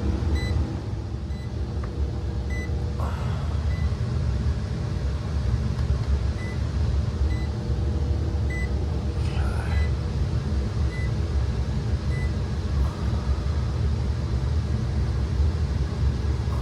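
Lennox furnace's blower running with a steady low hum while the system is called for cooling, with short high beeps about every second.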